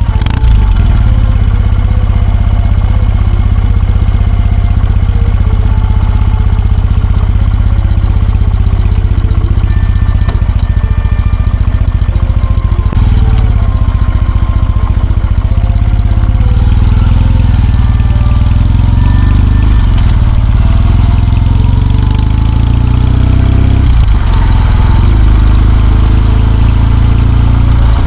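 Kawasaki W650's air-cooled parallel-twin engine running steadily as the motorcycle is ridden, with a heavy low rumble throughout.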